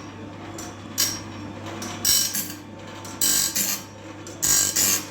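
Band sawmill blade sharpener running: over a steady motor hum, its grinding wheel rasps against the blade's teeth in short bursts about once a second as the feed advances the blade tooth by tooth, with mechanical clicking from the feed mechanism.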